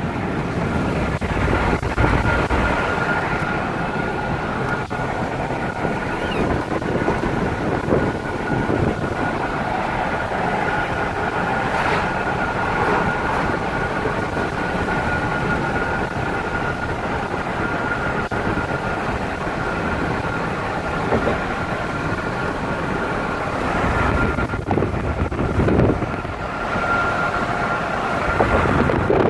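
Steady road and wind noise inside a moving vehicle, with a thin high whine held over the rush.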